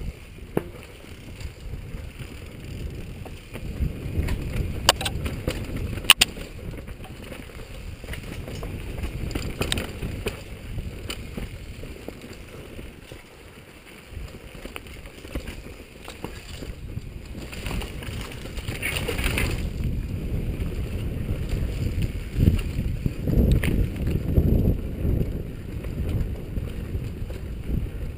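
Wind buffeting the camera microphone over the rattle of a downhill mountain bike running fast over a rough dirt trail, with a few sharp knocks as it hits bumps.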